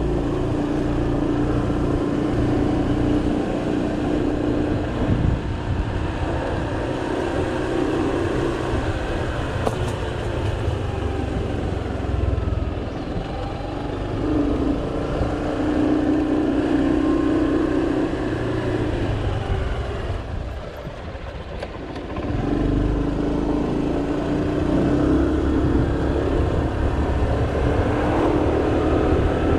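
Small motor scooter's engine running at riding speed, heard from on the scooter. The engine note falls away for a moment about twenty seconds in, then comes back.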